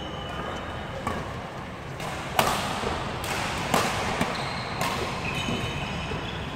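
Badminton rally: rackets striking a shuttlecock, a crisp hit every second or so, the sharpest about two and a half seconds in. Court shoes squeak on the floor near the end.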